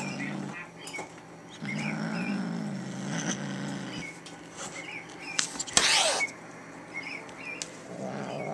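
Kitten growling low and steadily with a pom-pom ball in its mouth, guarding its toy from a hand reaching for it; one growl fades out about half a second in and a second runs from about a second and a half to four seconds in. A short noisy burst comes about six seconds in.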